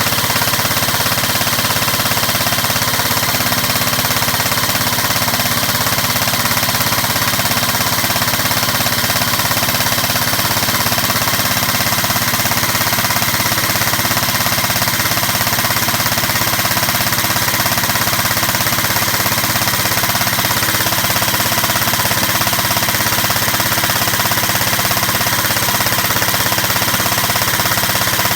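Electric airsoft M4 replica firing on full auto in one long unbroken run, its gearbox cycling in a fast, steady mechanical rattle, a sustained stress test of the mechanism.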